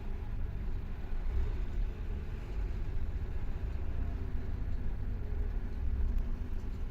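Scania K400 coach's diesel engine running with a steady low rumble.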